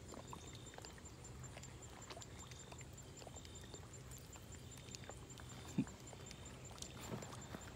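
Quiet outdoor ambience: a low steady hum, faint scattered clicks and short high chirps over a faint regular high ticking, with one short thump about six seconds in.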